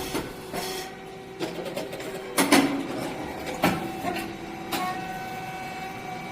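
SYP6060(S4) rice cake puffing machine cycling: several sharp pops and short hissing bursts, the loudest about two and a half seconds in, over a steady hum.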